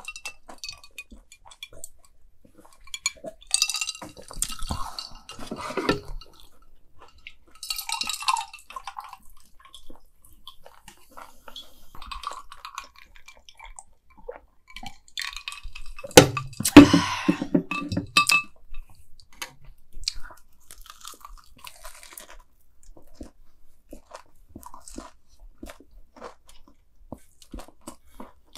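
Close-up eating sounds: crunching bites into deep-fried mac and cheese balls and chewing, coming in bouts with quieter pauses between them, the loudest bout a little past the middle.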